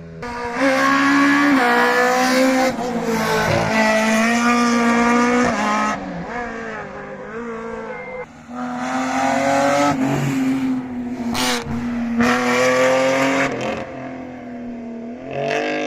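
Historic rally car engine revving hard at speed, its pitch rising and falling as it is driven. The loudest stretches come about half a second in and again about halfway through.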